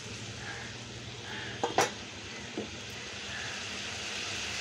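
Cauliflower and potato pieces sizzling in masala with a little water in a kadai, a steady sizzle that swells slightly near the end. A few sharp knocks sound about two seconds in.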